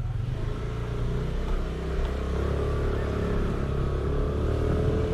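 Motorcycle engine running steadily while riding, a low drone whose pitch rises slightly partway through.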